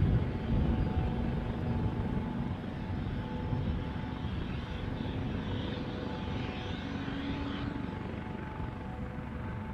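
Airbus AS365 Dauphin helicopter running on the ground with its rotor turning: a steady twin-turbine whine with a few held tones over a low rumble.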